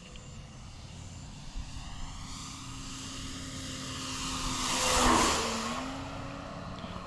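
Model Cessna 208 Grand Caravan's propeller and motor flying past. The sound builds steadily to a loud peak about five seconds in, drops in pitch as the plane goes by, then fades.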